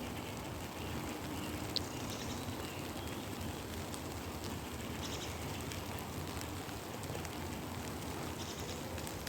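Steady rain falling, with a faint brief high tick about two seconds in.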